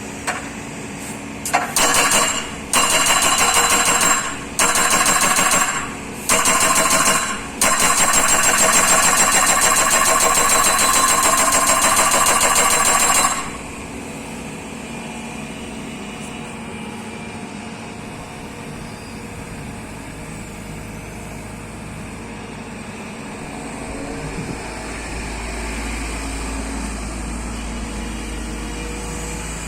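Hydraulic breaker on a Hyundai Robex 140W-7 wheeled excavator hammering in bursts: four short runs, then one of about six seconds. After that the excavator's diesel engine runs on alone, a low rumble rising near the end.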